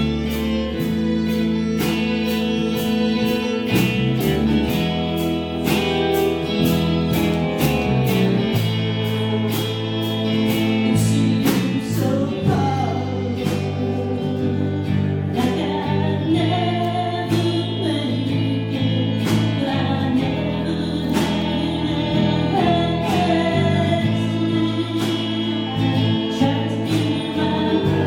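A band playing a song, with guitar and bass over a steady drum beat and singing voices joining in about halfway through.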